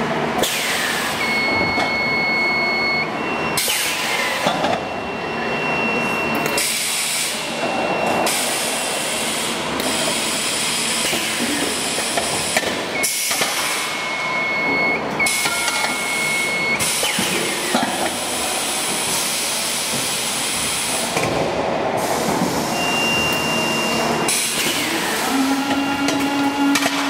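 Automatic welding machine working a steel cylinder body: steady loud hissing machine noise in sections that start and stop abruptly, with short steady high whining tones now and then.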